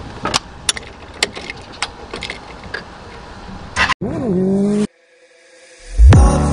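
Campagna T-Rex engine running just after a cold start, with scattered clicks. About four seconds in it cuts to a motorcycle engine briefly rising and falling in pitch, then a short silence, then electronic music with deep bass begins.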